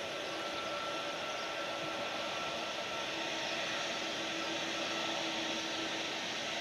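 Twin turbofan engines of a Boeing 777-200ER, Pratt & Whitney PW4000-series, running at low taxi power as the airliner turns onto the runway: a steady rushing hiss with a faint steady whine.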